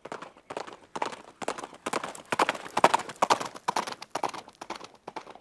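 Horse hooves clip-clopping in a quick, even rhythm, a sound effect laid over the picture of the rocking horse. The hoofbeats grow louder in the middle and ease off toward the end.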